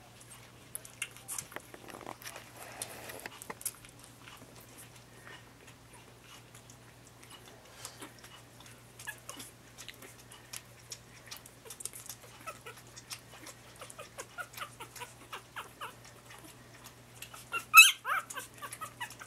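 Three-week-old Lhasa Apso puppies scrabbling and shuffling on fleece bedding, with small scattered squeaks and one loud high yelp from a puppy near the end. A steady low hum runs underneath.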